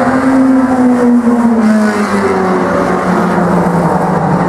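Several mini stock race cars' four-cylinder engines running hard around the oval, loud and steady, several engine notes at once. The strongest note drops slowly in pitch over the first two seconds.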